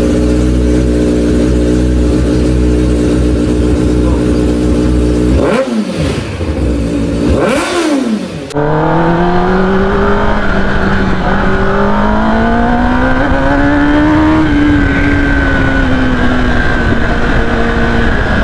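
Kawasaki ZX-10R's inline-four engine idling steadily, then blipped twice, each time rising quickly in pitch and falling back. Abruptly it is under way, the engine note climbing as the bike accelerates and then easing a little near the end.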